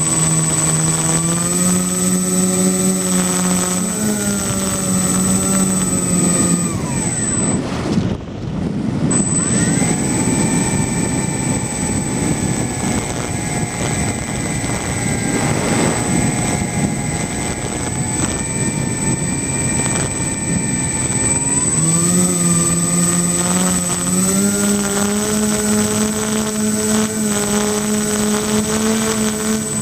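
Two 1000KV brushless electric motors turning 10x6 propellers on a foam RC plane, heard from its onboard camera. They give a steady propeller drone whose pitch steps up and down with throttle. About eight seconds in it drops away to rushing air for a couple of seconds, then comes back, with a thin high whine under it the whole time.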